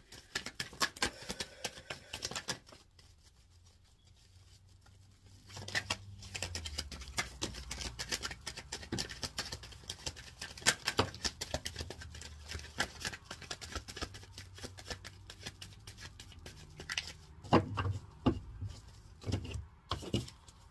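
Tarot cards being shuffled by hand: a rapid run of light clicks and slaps of card on card, pausing about three seconds in and picking up again a couple of seconds later.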